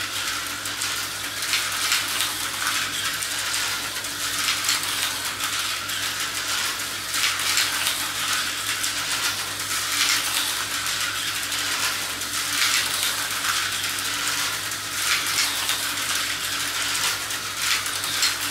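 Tyco HO slot cars lapping a plastic track: a steady high whirring and rattling made of many small rapid clicks, with a faint low hum underneath.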